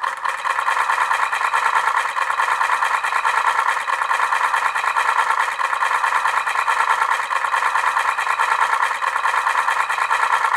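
An alarm sounding: a fast, steady rattling buzz that starts suddenly after a brief silence and keeps going without a break.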